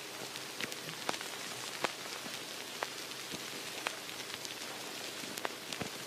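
A steady soft hiss with a few scattered sharp crackles each second.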